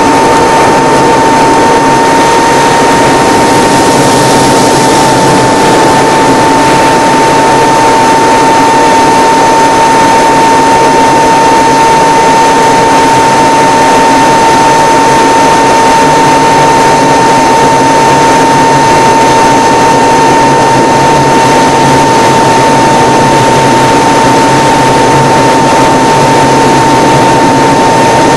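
Single-engine propeller airplane's piston engine and propeller running steadily, heard loud from inside the cockpit, with a constant high whine over the drone.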